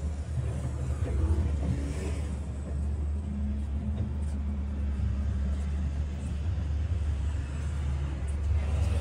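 A steady low rumble, with a broader noise swelling briefly about two seconds in.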